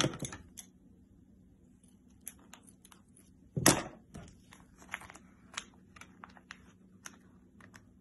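Small clicks, taps and rustles of plastic packaging being handled and pried at, which is resisting being opened, with one louder knock about three and a half seconds in.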